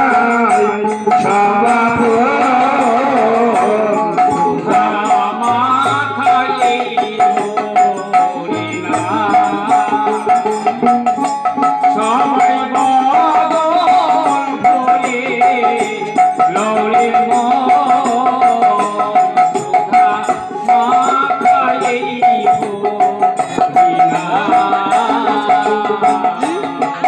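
Devotional folk music played by a small ensemble. A harmonium carries the melody with a held reed note, and a plucked long-necked lute plays alongside. Fast, steady hand percussion runs throughout.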